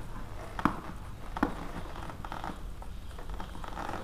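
Fingernails picking at and peeling packing tape off a cardboard box: two sharp clicks less than a second apart, then scratchy tearing and rustling of tape and cardboard.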